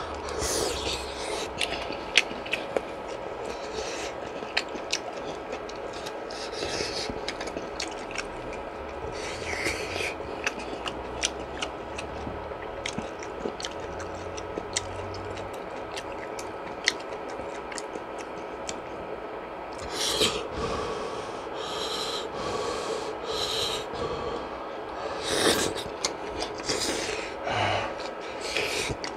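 Close-up eating sounds of fish cake soup: chewing and slurping, with several short slurps in the second half and many small clicks of utensils and mouth throughout.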